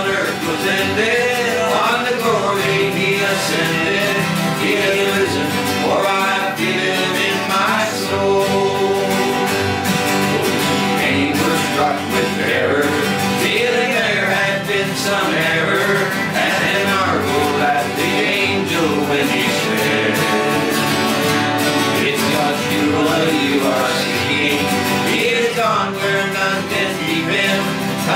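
Men singing a gospel song together, accompanied by several strummed acoustic guitars.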